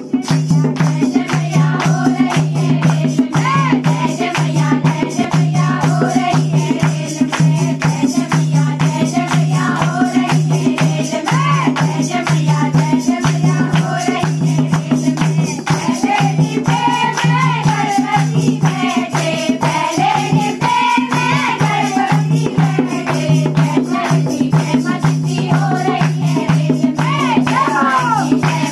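A group of women singing a Hindu devotional bhajan to the goddess in unison, keeping time with steady hand clapping and a dholak drum.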